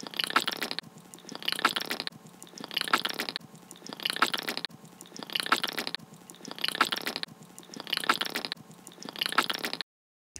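Wet, squishy chewing and slurping eating noises, in eight evenly spaced bursts about a second and a quarter apart, as if looped, cutting off suddenly near the end.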